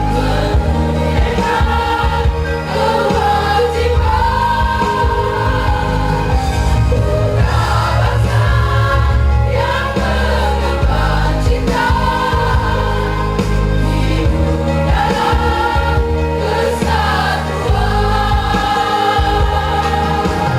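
A community choir singing in long held phrases over a steady low accompaniment.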